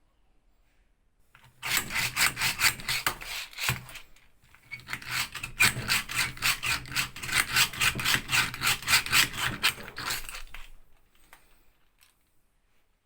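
A restored German-made Archimedes (push) drill boring into wood, the bit scraping in quick back-and-forth strokes, about four a second. There is a short pause about four seconds in, then the drilling resumes and stops near the end.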